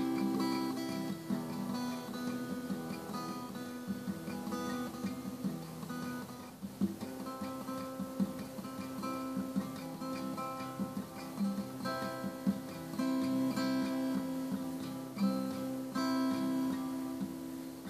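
Instrumental music on acoustic guitar: single plucked notes and chords ringing over one another in a slow, unhurried piece.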